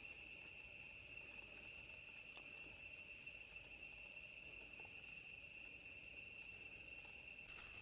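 Faint, steady high-pitched insect chorus: one unchanging droning tone.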